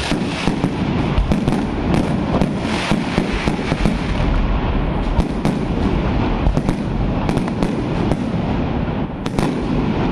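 Fireworks display going off: a continuous crackling from a ground fountain and bursting shells, with many sharp bangs, several in some seconds.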